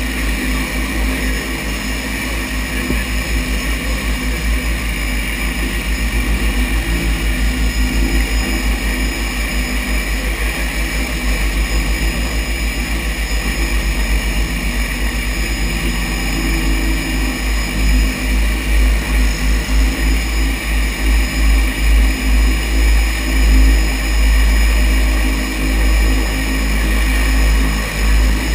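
A floatplane's propeller engine running as it taxis on the water: a steady high whine over a low drone. About halfway through, the sound begins to throb, swelling and fading about one and a half times a second.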